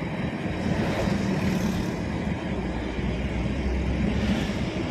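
Vehicle engine and road noise on the move, a steady low hum under a noisy rush, with wind on the microphone.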